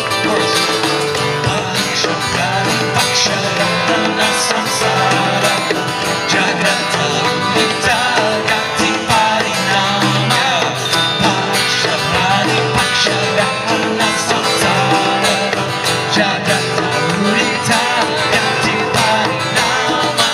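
Live acoustic band music: strummed acoustic guitars over a steady djembe hand-drum beat, with clarinet and singing.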